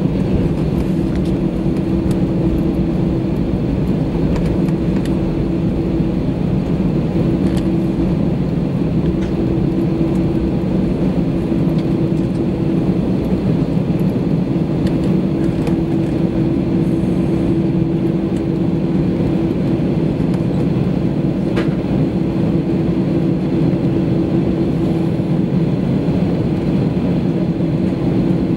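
Airbus A320 cabin noise over the wing while taxiing: the engines are at low power, giving a steady drone with a constant low hum and no rise of a takeoff run.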